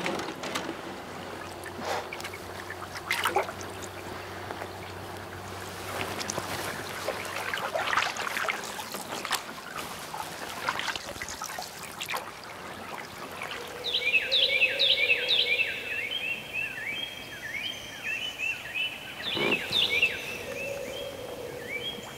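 Rustling and knocking of gear and a canoe being boarded in the dark, with water trickling. A little past the middle a bird starts singing rapid runs of short, high chirping notes, which become the loudest sound.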